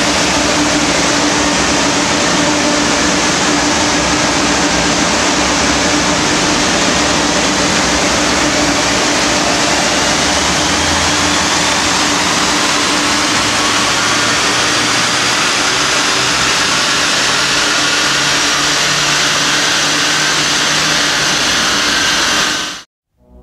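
Chip-tuned Audi A4 B5 1.9 TDI four-cylinder turbodiesel running on a chassis dynamometer roller under the steady rush of a large cooling fan. A whine falls over the first few seconds, then rises slowly through the rest as the engine is run up through its revs. The sound cuts off abruptly near the end.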